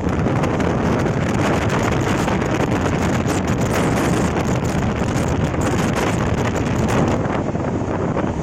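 LHB express train coach running at speed: a steady, loud rush of wheel and track noise with wind buffeting the microphone.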